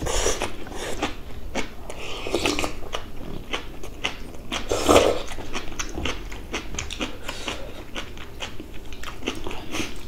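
Close-up eating sounds: chewing and slurping of food, including seaweed soup, with many small clicks of chopsticks and a spoon against bowls and teeth.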